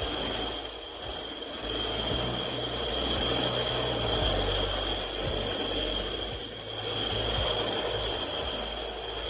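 A machine running steadily, with a constant high whine over a low, uneven rumble.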